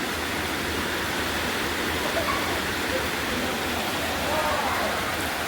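Heavy rain falling, a steady even hiss of water with no let-up.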